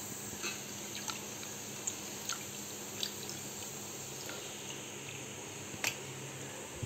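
Raw goat spleen being washed by hand in a steel bowl of water: water sloshing and dripping with small wet squishes, and a sharp click about six seconds in.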